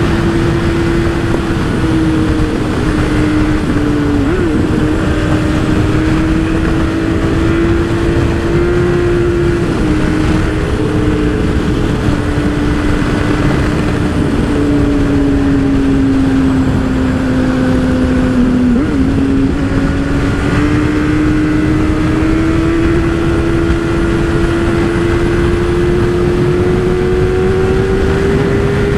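Motorcycle engine running at road speed, its note sagging gradually and then climbing steadily through the second half, under heavy wind rush on the microphone.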